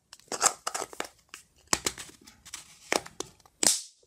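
Plastic diffuser dome of an LED bulb being pushed and worked onto the bulb body by hand: a run of irregular plastic clicks and scrapes, with a longer rasp near the end.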